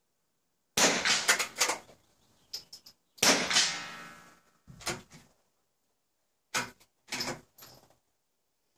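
Two small-bore .22 rimfire rifle shots about two and a half seconds apart, each ringing on briefly in the range. Several softer knocks and clanks follow.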